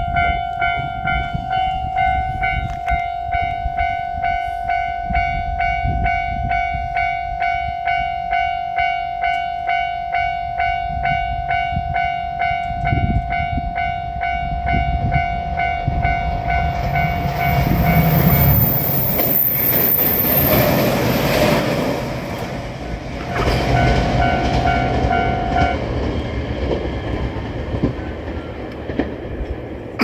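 Japanese level-crossing warning bell ringing its steady, rhythmic clang at about one and a half strikes a second. From about 16 s to 26 s a train passes over the crossing, its wheels rumbling and clattering on the rails with a brief high squeal, partly covering the bell.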